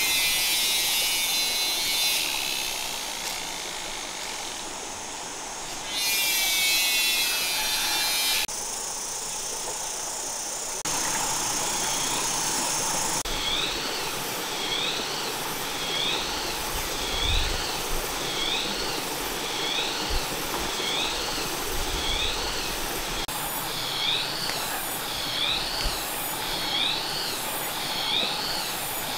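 Forest ambience with abrupt cuts between takes: a dense, high insect buzzing at the start and again between about six and eight seconds, over a steady hiss. From about thirteen seconds a short call repeats about once a second, with a second call joining near the end.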